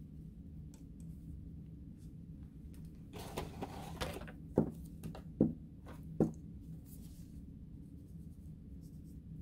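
Handling noises while a small model-train motor is worked on by hand: a second of rustling, then three knocks about a second apart, over a steady low hum.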